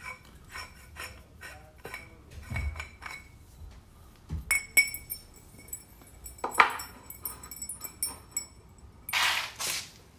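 Metal clinking and knocking as a cast iron pipe floor flange and loose screws are handled and set on a wooden board, with a sharp metallic strike about four and a half seconds in that leaves a high ringing. Two short bursts of noise near the end.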